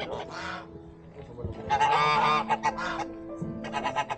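A flock of white domestic geese honking: a short call near the start, a longer, louder bout of honks about two seconds in, then several short honks.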